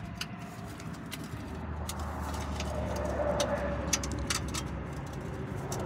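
Small clicks and scrapes from hands working a patch onto a rusted exhaust pipe. A bird calls in the background near the middle, over a low rumble that swells and fades.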